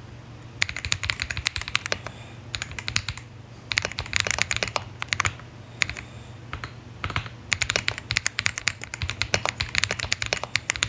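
Typing on an Attack Shark X85PRO 75% gasket-mount mechanical keyboard with pre-lubed linear Blueberry switches: rapid keystrokes in bursts with short pauses, a smooth, thocky sound.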